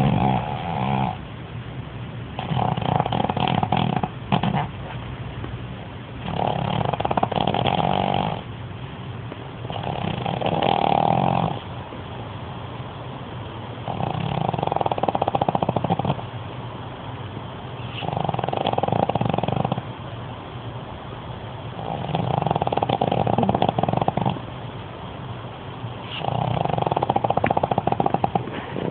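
A sleeping pug snoring loudly: about seven big snores, each around two seconds long and coming roughly every four seconds, with quieter breathing between. Such snoring is typical of the pug's short, flat-faced airway.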